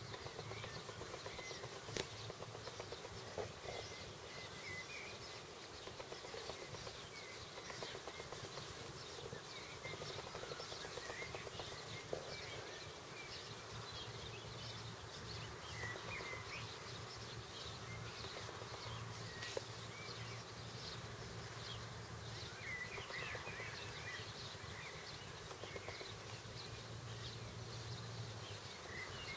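Outdoor ambience: a low, steady buzzing hum that fades in and out, like a flying insect, under many short, faint bird chirps, with a few sharp clicks.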